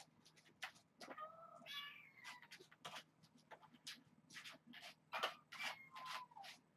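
Hungry young kittens meowing for food: a faint call about a second in, a higher falling meow just after, and another short one near the end. Light clicks and scrapes of a utensil on the food plate come in between.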